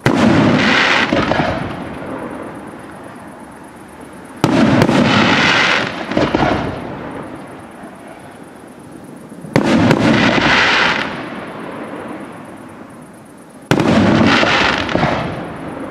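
Aerial firework shells bursting: four loud bangs about four to five seconds apart, each followed by a noisy tail that dies away over a couple of seconds.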